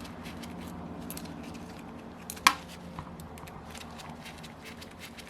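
Small metal clicks and taps of hand tools and screws while the rear cover is being unbolted from a Saito 150 model-airplane engine, with one sharp metallic click about halfway through, over a steady low hum.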